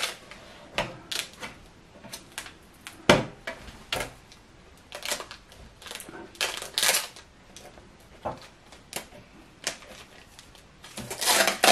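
Clear protective plastic film crinkling and crackling as it is peeled off a router by hand, in scattered irregular crackles, with a denser spell of crackling near the end.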